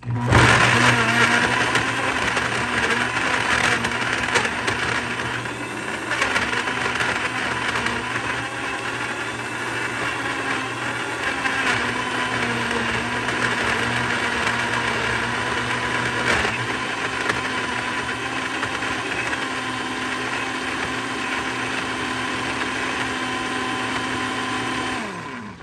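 Single-serve blender motor running at full speed, chopping frozen peaches, carrots and an orange in orange juice into a smooth purée. It starts suddenly, is loudest in the first couple of seconds while the whole pieces are broken up, then runs steadily and winds down just before the end.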